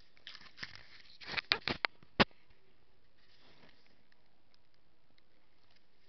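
Handling noise on the camera: rustling and a quick run of sharp clicks about a second in, ending in one loud click, with a fainter rustle after.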